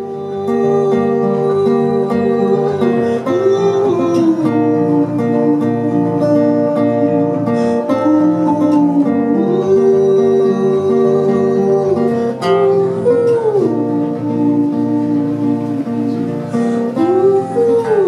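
Acoustic guitar strummed steadily, with a man's voice holding long wordless notes over it that glide up and down between phrases.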